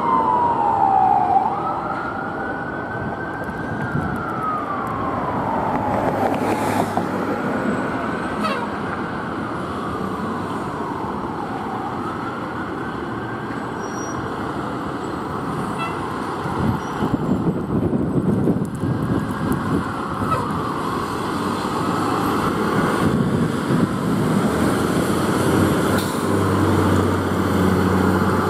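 Fire truck siren wailing, sweeping slowly up and down in pitch about every four seconds, over the low rumble of the truck's engine.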